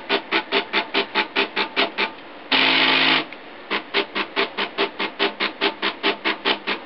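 3D printer's stepper motors driving the print head back and forth in quick, even strokes, about five a second, each with a buzzing whine. About two and a half seconds in, the strokes pause for one louder, steady whine lasting under a second, then resume.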